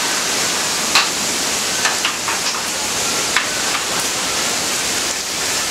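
Hurricane rain and wind: a steady rushing hiss of heavy rain, with a few sharp taps scattered through it, about one a second.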